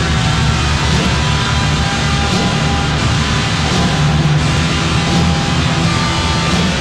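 Background rock music with distorted electric guitar, loud and steady.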